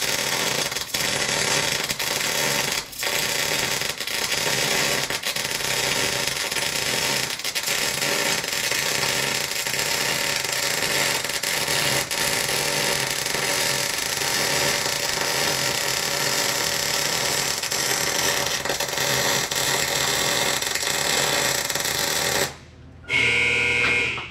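MIG welding arc running steadily as a bead is laid on a steel truck suspension bracket, with a few brief breaks in the first few seconds. Near the end the arc stops and a short tonal sound follows.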